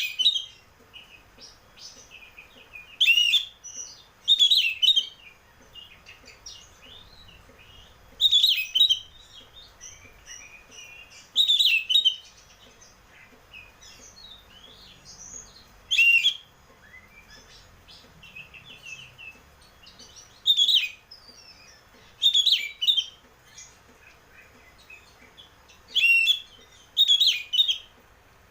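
Oriental magpie-robin (kacer) singing in open, full-voiced phrases: about ten loud, clear bursts of song a few seconds apart, with softer twittering between them.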